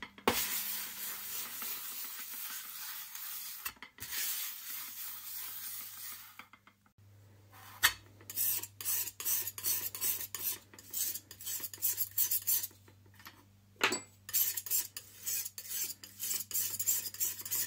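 Glass muller grinding a wet paste of yellow ochre and indigo pigment on a glass slab, a continuous gritty rubbing. After a short pause, a metal palette knife scrapes the paste across the glass in many quick, short strokes.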